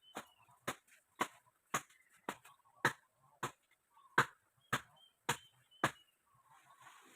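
A series of sharp, heavy strikes at an even pace, about two a second, about eleven in all, stopping a second before the end. Faint bird chirps sound between the strikes.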